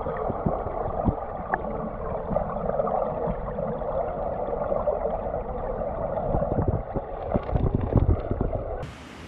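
Mountain stream heard underwater through a GoPro: a muffled, churning rush of water with low thumps. Near the end it cuts to a quieter, steady hiss.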